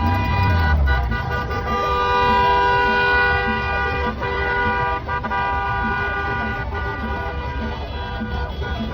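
Several car horns honking at once in long, overlapping blasts of different pitches, a celebratory honk-in, over the noise of traffic.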